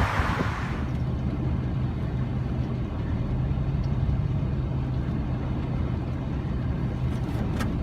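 Inside a car: wind noise dies away within the first second, leaving the steady low hum of the car's engine and cabin, with a faint click near the end.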